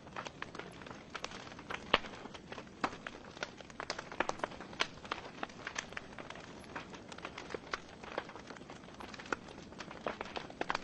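Wood fire burning in a fireplace: burning logs crackling and popping at irregular intervals over a soft steady hiss of flame, with one sharp pop louder than the rest about two seconds in.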